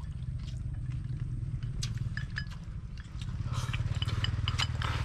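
A small motor runs steadily with a low pulsing hum throughout. Scattered light clicks of bowls and chopsticks from people eating sit over it.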